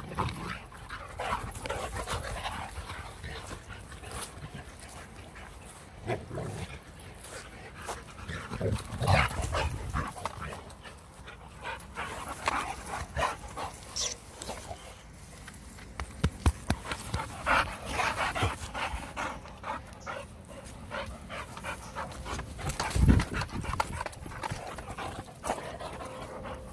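Boxer dogs panting hard during rough play, mouthing at a hand, with a few loud thumps, the loudest about 23 seconds in.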